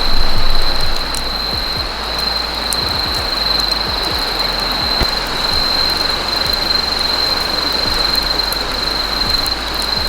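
Wood campfire burning, with irregular sharp crackles over a steady noisy hiss and a constant high-pitched whine; louder for a moment at the start.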